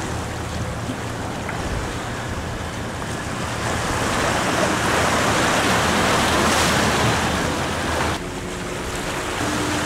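Surf washing and breaking against the jetty rocks, a steady rush of water that grows louder about four seconds in and drops off abruptly near the end.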